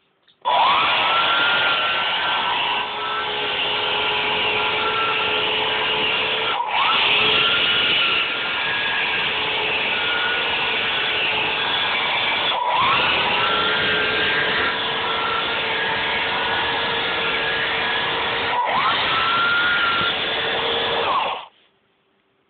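Two DC gearmotors of a small robot chassis running loudly with a steady gear whine. They stop for a moment about every six seconds, then start again with the whine rising slightly as they come up to speed, and cut off near the end.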